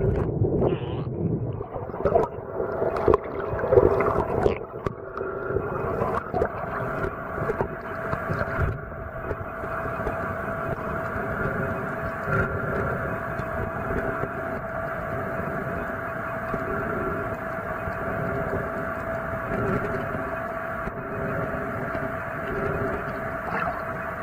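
Muffled underwater sound picked up by an action camera in its waterproof housing: knocks and rustles of water and handling for the first few seconds, then a steady droning hum under a wash of water noise.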